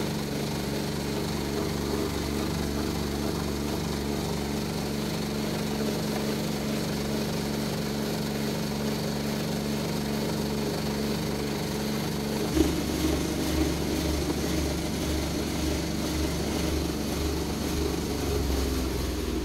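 Electric feed grinder (crusher) running steadily while eggshells are fed into its hopper. About two-thirds of the way through, a sudden change leads to a feed mixer running, its paddles churning powdered duck feed with a deeper, pulsing hum.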